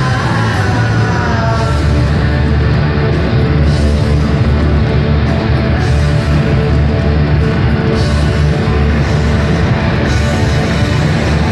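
Live rock band playing a loud instrumental passage on electric guitars, bass and drums, heard through a PA in a large hall.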